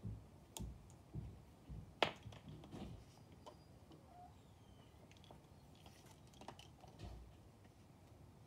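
Wooden lace bobbins clicking and knocking lightly against each other as the pairs are crossed and twisted into lace stitches: an irregular scatter of soft taps, the loudest about two seconds in and fewer toward the end.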